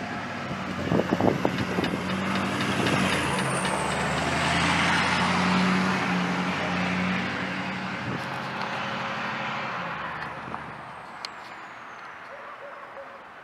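Pickup truck driving across the railroad crossing and past, its engine rising to a peak midway and fading as it goes. A few knocks about a second in as its tyres go over the rails.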